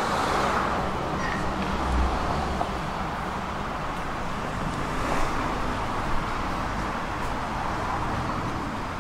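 Road traffic passing on a city street: a steady wash of car noise with a low rumble underneath.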